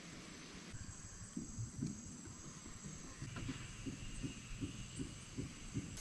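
Faint outdoor background: a steady high-pitched insect drone over a low, irregular rumble.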